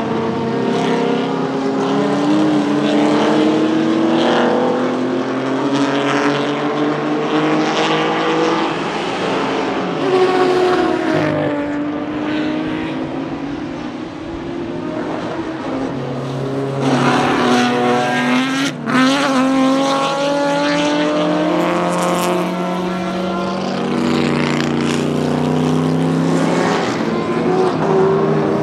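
Historic racing touring cars, Ford Capri RS 3100s and Ford Escorts among them, passing at speed. Several engines overlap, their pitch climbing as they accelerate and dropping as they lift and change gear, with a brief sharp break a little past halfway.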